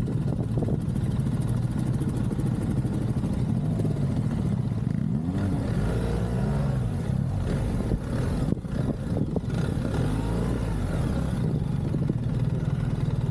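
Motorcycle engine running while riding, its note rising and falling a few times in the middle as the throttle is worked, over a steady hiss of wind and tyre noise.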